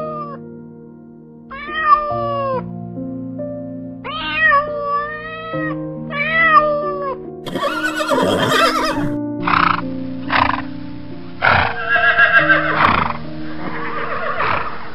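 Slow background music of held notes with a series of animal calls over it: three drawn-out calls that rise and fall in pitch, then rougher, noisier calls in the second half.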